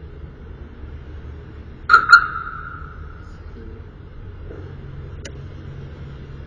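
Two sharp knocks in quick succession about two seconds in, each ringing briefly with a metallic tone, over a steady low hum; a faint click follows later.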